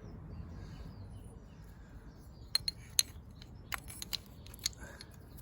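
Light metallic clicks and clinks, a handful of sharp ones clustered in the middle, as the brake caliper's pad retaining pin is handled and cleaned of rust.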